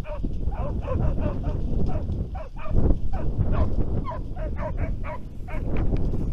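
Hunting hounds baying in a quick run of short yelps, about three a second, as they give tongue chasing game through reeds. Strong wind rumbles on the microphone underneath.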